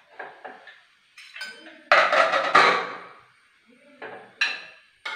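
Metal clanks and knocks of a Prestige pressure cooker being handled: its lid lifted off and set aside, then a steel ladle stirring and knocking in the pot. The loudest are two clanks about two and two and a half seconds in.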